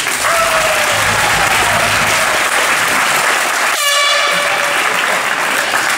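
Audience applauding steadily in a hall, with a brief high horn-like tone or call rising above it about four seconds in.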